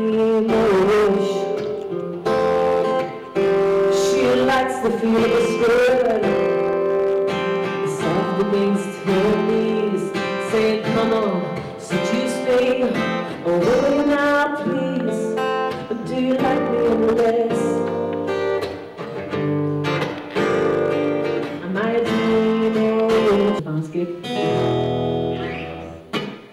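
A woman singing with her own strummed acoustic guitar accompaniment, played live. The music falls away near the end.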